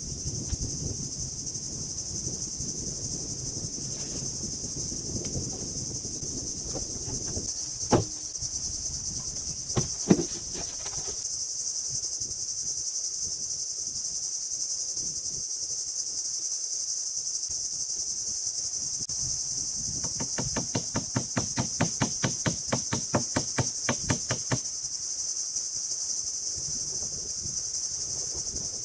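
Steady, high-pitched insect chorus, like crickets, droning without a break. Over it there is a low rumble for the first several seconds, two sharp knocks about eight and ten seconds in, and a fast run of about seven strikes a second lasting about four seconds near the two-thirds mark.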